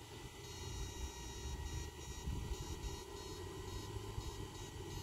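Electrofishing rig's power unit giving a high-pitched electronic whine in short, irregular on-off bursts as the shocking poles are switched on in the water, over a steady low rumble.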